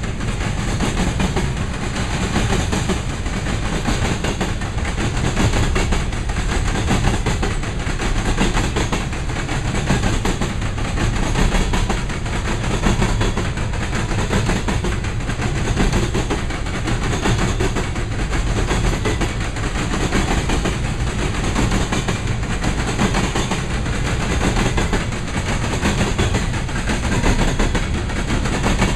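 Herzog ballast hopper cars of a freight train rolling past, a steady rumble of steel wheels on rail with continual clicking.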